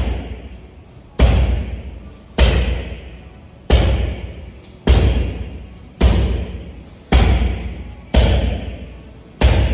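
Muay thai roundhouse kicks landing on a hanging heavy punching bag: a loud thud about every second and a quarter, eight in all, each trailing off in the hall's echo.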